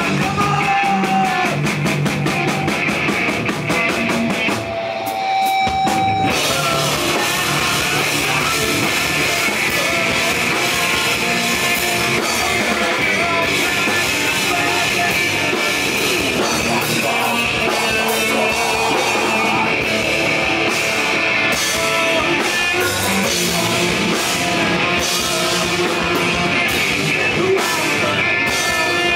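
A rock band playing live at full volume: electric guitars, bass and drum kit, with vocals into a handheld microphone. About four seconds in the drums and low end drop out briefly, leaving a single held note, and the full band crashes back in around six seconds in.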